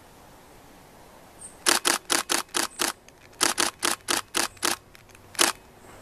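Camera shutter firing in continuous bursts: two runs of six quick clicks at about four frames a second, then a single click.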